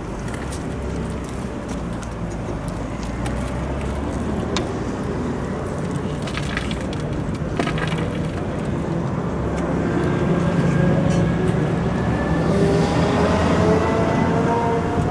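Motor vehicle engine running with a steady low hum; in the second half its pitch rises gradually and it grows louder. A few faint clicks and knocks are also heard.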